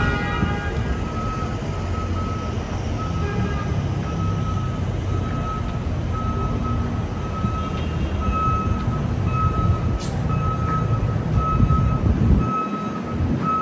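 A repeating electronic beep at one steady pitch, about once a second, over the low rumble of street traffic, which swells a little near the end.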